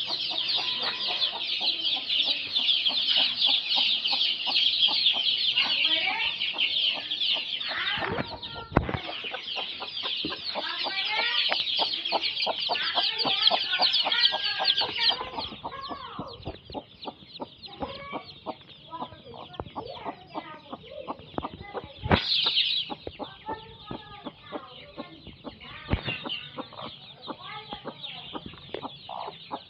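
Chicks peeping constantly in high, rapid cheeps, with lower clucking underneath. The peeping is densest for the first fifteen seconds and then thins out, and a few sharp knocks come through.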